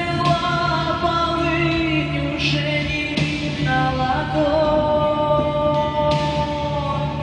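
Music: a slow song with singing, long held melody notes over a steady accompaniment.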